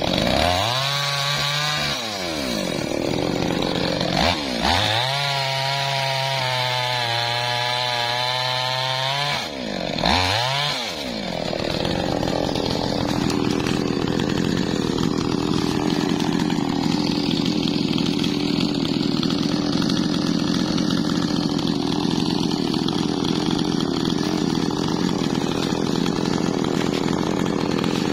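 Two-stroke chainsaw run up to full speed three times while cutting a dead, dry teak log, each run rising, holding and falling back, then left idling steadily.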